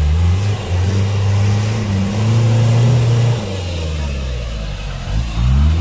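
Off-road 4x4's engine running hard under load on an obstacle, easing off a little about halfway, then revving up briefly near the end. It is being driven with its differential locks not engaged.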